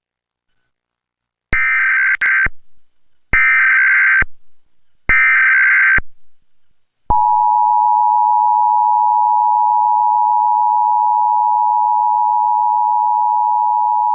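Emergency Alert System national periodic test signal: three roughly one-second bursts of digital SAME header data, then the steady two-tone attention signal (853 and 960 Hz) begins and holds.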